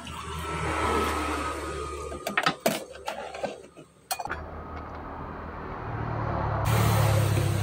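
Water poured into a glass of lime and green chilli, then a metal spoon clinking several times against the glass and steel tumblers. After about four seconds a low steady hum takes over.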